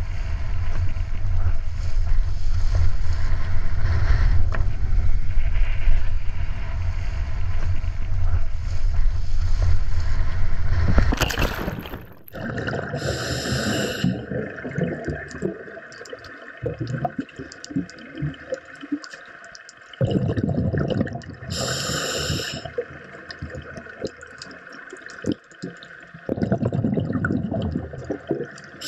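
A small boat running across the water, its motor and the water against the hull making a loud, steady noise heavy in the low end. About twelve seconds in this gives way to underwater sound: gurgling and bubbling, with louder bursts of bubbles about every eight seconds.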